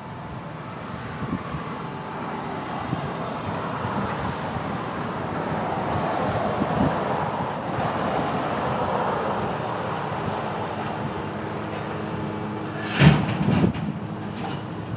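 Grapple truck's engine and hydraulics running steadily, swelling a little toward the middle. About 13 seconds in come two heavy clanks close together as the grapple sets its load of concrete crossties into the steel truck bed.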